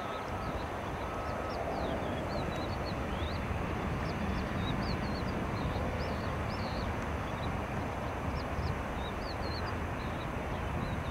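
Cessna Citation CJ3 business jet's twin turbofan engines heard from the side of the runway as a steady rumble and hiss. Birds chirp over it throughout in many short high notes.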